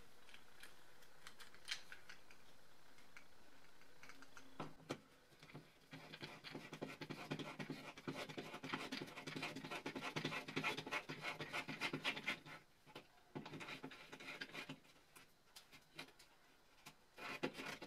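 Hand screwdriver twisting a self-drilling toggle anchor into drywall: a dense, crackling scratch of the anchor's threads cutting through the gypsum. It starts about five seconds in, with a couple of short pauses.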